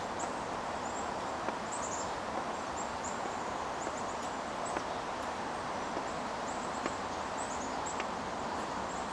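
Steady woodland background hiss with many faint, short, high chirps, and a few soft taps as chalk is written on a chalkboard.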